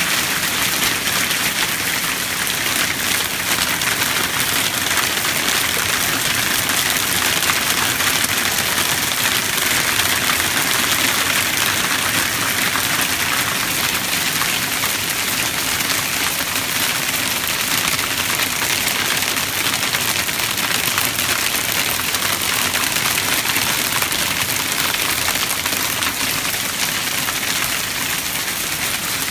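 A hailstorm: countless small hailstones falling steadily, a dense hiss of tiny impacts on wooden deck boards, a concrete patio and grass.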